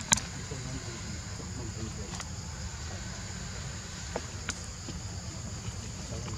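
Outdoor ambience of a low wind rumble and a steady high insect drone, broken by a few sharp crackles of dry leaves as a baby macaque grabs at them. The loudest crackle comes just at the start, with fainter ones about two and four seconds in.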